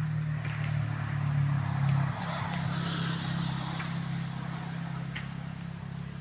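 A motor vehicle's engine running with a steady low hum. It is loudest about two seconds in, then slowly fades.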